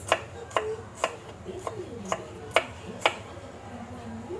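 Knife chopping garlic on a cutting board: sharp knocks of the blade against the board, about two a second.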